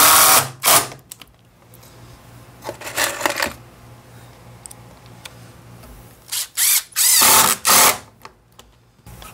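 Cordless impact driver driving screws into wooden boards without pilot holes, in bursts: a long run right at the start, a short one about three seconds in, and a longer one about seven seconds in.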